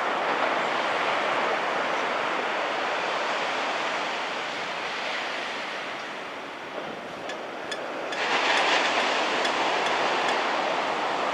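Small shore-break waves washing onto a sandy beach: a steady rush of surf that eases off midway, then a wave breaks about eight seconds in and the wash grows louder.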